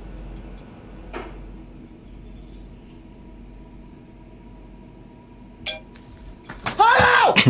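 Low room tone with a couple of soft clicks, then near the end a man's loud, startled cries, several quick yells that rise and fall in pitch.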